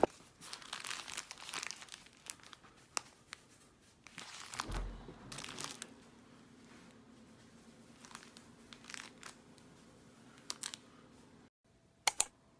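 Paper sandwich wrappers and a plastic bag crinkling and rustling in irregular crackles as wrapped sandwiches are handled, with a dull thump about five seconds in.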